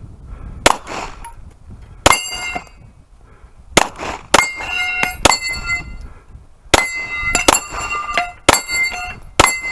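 About nine pistol shots, irregularly spaced, fired at a swinging steel plate rack. After many of the shots the struck steel plates ring with a high metallic clang.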